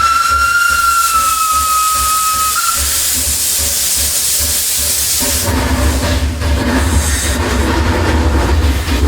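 Steam locomotive whistle blowing one long note that stops about two and a half seconds in, followed by a loud hiss of escaping steam. About five seconds in, a low rumbling takes over as the train gets under way.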